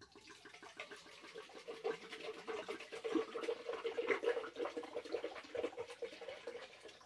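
Red wine glugging out of a bottle into a clear plastic pitcher: a continuous gurgling pour that swells in the middle.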